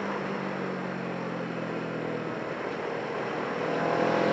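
Motorcycle engine running under way, heard through wind and road rush on the onboard microphone. The engine note drops back about halfway through, then rises and grows louder near the end.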